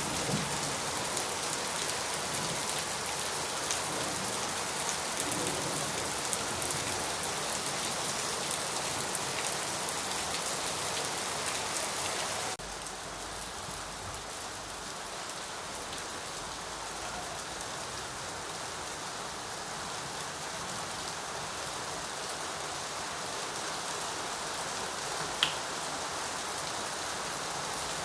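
Steady rain falling, an even hiss of many drops. About twelve seconds in it drops suddenly to a softer, quieter rain, and one sharp tick stands out near the end.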